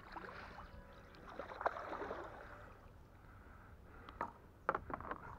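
Water lapping and splashing gently around a small raft, with a few light knocks, the sharpest about a second and a half in and a cluster near the end.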